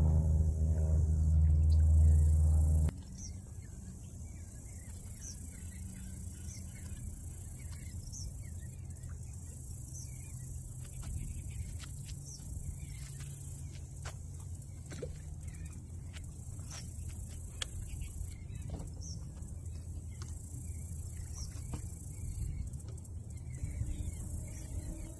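A short stretch of background music cuts off about three seconds in. Outdoor ambience follows: a steady low rumble, faint scattered ticks, and short faint high chirps repeating every second or so.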